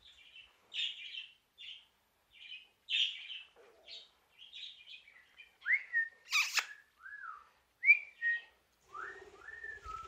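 Budgerigar chirping and chattering in short bursts, with a sharp squawk about six and a half seconds in. Several clear whistled notes, each rising and then holding, come in the second half.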